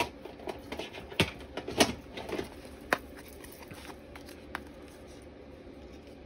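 Clear plastic storage box handled and paper cut-out figures shuffled: a few scattered light clicks and rustles over a faint low hum.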